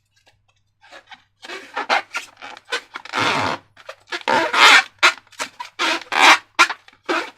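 Slime being squeezed and worked by hand, wet squelching and crackling in quick, irregular bursts that grow louder a few seconds in.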